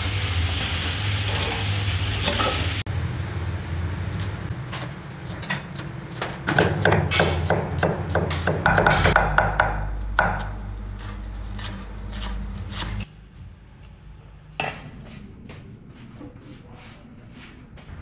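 Tap water running into a steel sink bowl while leafy perilla is rinsed, cut off about three seconds in. Then a cleaver chops perilla on a wooden chopping board in rapid strokes, loudest in the middle and lighter near the end.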